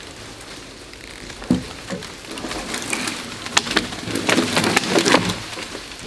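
Branches and vines cracking and snapping as a vine-tangled tree breaks free: two dull thumps, then a long run of sharp crackles and snaps from about two and a half seconds in to near the end.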